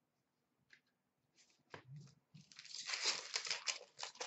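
Card pack wrapper being torn open and crinkled, a dense crackle in the second half, after a few light taps of cards being set down.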